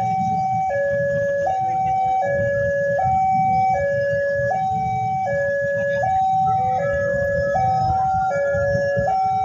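Railway level-crossing warning alarm sounding: an electronic two-tone chime alternating high and low, each tone about three-quarters of a second, signalling that a train is approaching. A low rumble runs beneath it.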